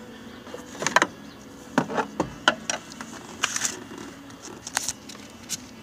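Rubber door weatherstrip of a 1999 Ford F-150 being pulled up off the door opening by hand: a series of irregular clicks and short rustling scrapes, the sharpest about a second in.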